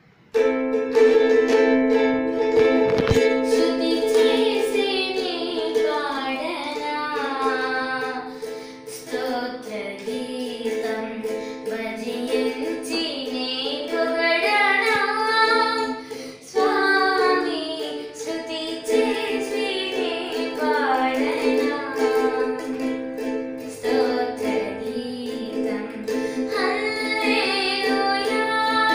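A girl sings a song with ukulele accompaniment, the ukulele playing steady chords under her voice. The music dips briefly about halfway through.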